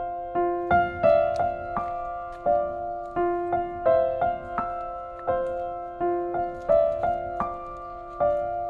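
Background piano music: a slow, even run of single struck notes, one about every three-quarters of a second, each ringing and fading.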